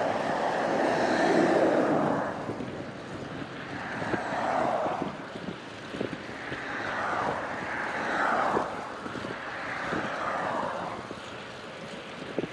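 Road vehicles passing one after another, heard from a moving bicycle, each rising and fading with a bending pitch. Wind noise sits on the microphone underneath, and short sharp clicks come now and then.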